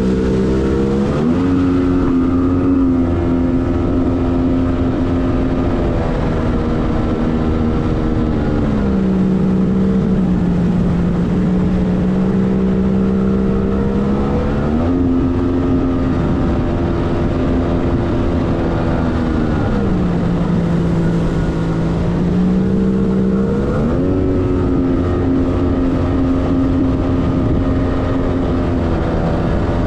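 1997 Arctic Cat TigerShark Monte Carlo 1000 personal watercraft's two-stroke engine running steadily. Its pitch steps up and eases back down several times as the throttle is opened and closed: up about a second in, down near nine seconds, up again near fifteen, down near twenty, and up once more near twenty-four.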